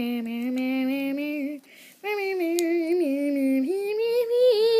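A voice singing a tune in long held notes that step up and down, in two phrases with a short break about a second and a half in.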